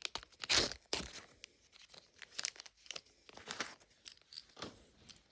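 Thin plastic packaging being torn open and crinkled by hand, in irregular crackling bursts with a few sharp clicks, loudest about half a second in.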